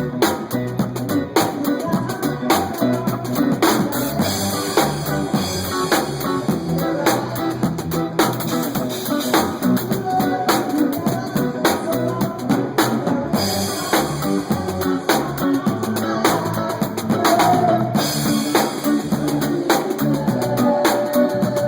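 Live band playing a dance song at a sound check, with the drum kit keeping a steady, driving beat of kick, snare and rimshots under the other instruments.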